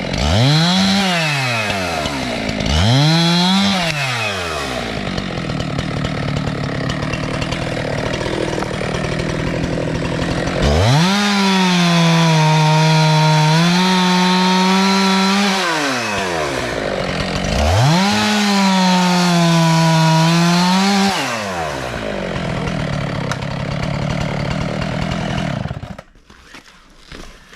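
Two-stroke chainsaw revving up and cutting wood, its pitch dipping slightly under load in the long cuts and falling back to idle between them. The engine shuts off suddenly near the end.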